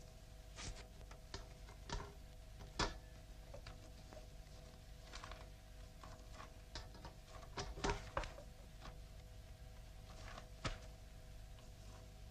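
Quiet room tone: a faint steady hum with scattered soft clicks and taps, a little louder about three seconds in and again around eight seconds.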